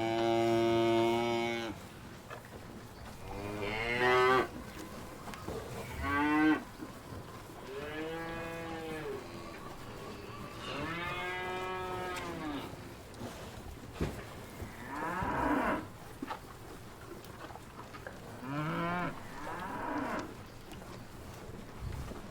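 Cows mooing: a series of about seven separate calls, some long and drawn out, some short, with quieter gaps between them.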